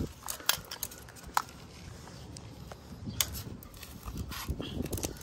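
Scattered light clicks and taps from handling screen mesh and spline along a metal window-screen frame while lining up the mesh, with a brief squeak about a second and a half in.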